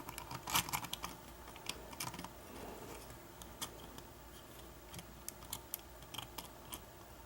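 Faint, irregular small metallic clicks and scrapes of a thin lock pick and tension wrench working inside a pin-tumbler lock's keyway during single-pin picking.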